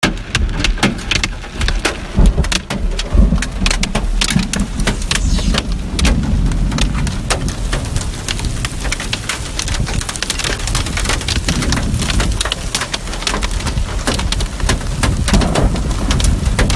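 Heavy rain with hail, many sharp separate cracks of stones striking hard surfaces over a steady downpour, with a low rumble underneath.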